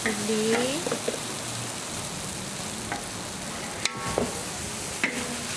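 Belacan and lemongrass sizzling in a large steel wok while a metal spatula stirs and scrapes them, with one sharp metallic clang about four seconds in.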